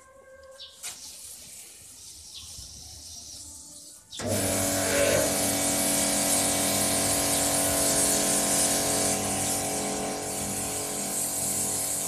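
A self-service car wash machine's high-pressure pump starts suddenly about four seconds in as the gun is triggered. It then runs steadily, a hum under the loud hiss of high-pressure foam spraying from the gun onto the van.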